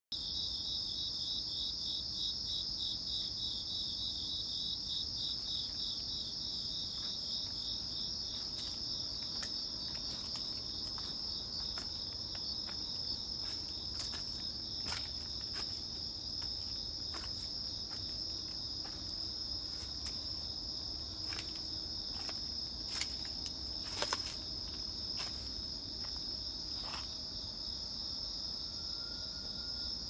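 Crickets chirping in a steady, high-pitched chorus, with a pulsing trill of about four chirps a second over the first several seconds. Scattered sharp clicks and snaps cut through from about eight seconds in, the loudest a little past the three-quarter mark.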